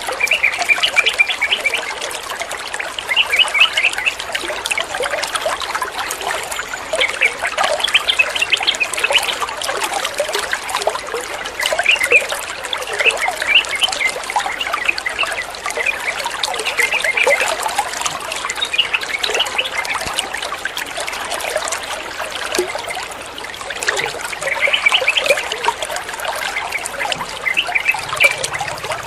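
Water trickling steadily, with short bubbly chirps of yellow-vented bulbul (trucukan) song coming and going over it.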